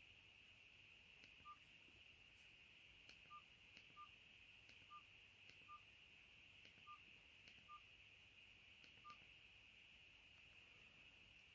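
Keypad beeps of a TKEXUN G9000 flip phone as its buttons are pressed to move through the menus: about eight short, quiet, single-pitched beeps at irregular intervals.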